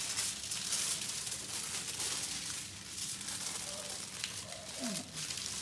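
Parchment paper and aluminium foil crinkling as a meat mixture is rolled up in them by hand.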